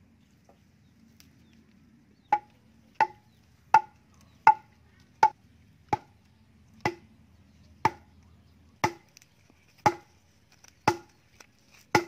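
A wooden post being driven into the ground by pounding its top with a length of bamboo or wood: twelve sharp knocks, each with a short ringing note, starting about two seconds in, at first about 0.7 s apart, then slowing to about one a second.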